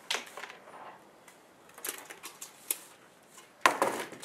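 A few light clicks and knocks, then a louder, noisier thump about three and a half seconds in.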